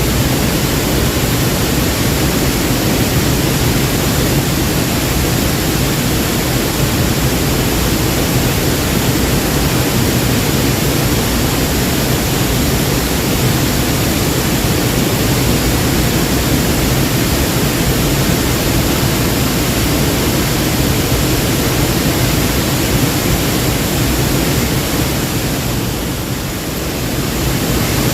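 Waterfall: a steady, loud rush of falling water, easing slightly for a moment near the end.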